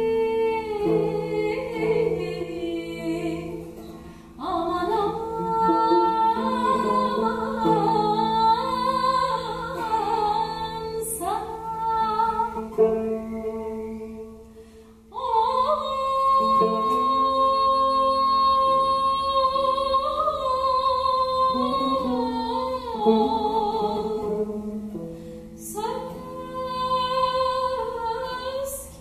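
A woman singing a gazel, the free-rhythm Ottoman vocal improvisation, in makam Sultaniyegâh, with long held notes bent and ornamented, over a softly plucked Turkish tanbur. The singing breaks off briefly twice, about four seconds in and about fifteen seconds in.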